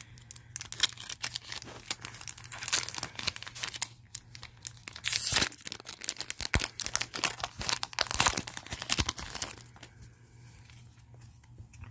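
Foil Pokémon card booster pack being torn open and crinkled by hand: irregular crackling and tearing, loudest about five seconds in and again around eight seconds, dying down near the end.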